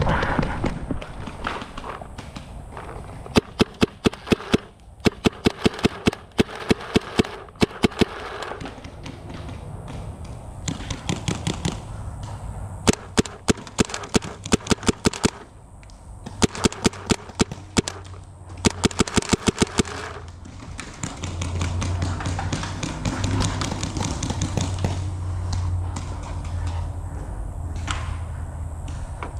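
Paintball markers firing: strings of quick, sharp pops, several a second, in four volleys a few seconds apart.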